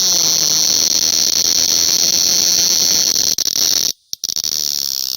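Cicada buzzing loudly and steadily, with a brief break about four seconds in before it resumes, then cutting off near the end.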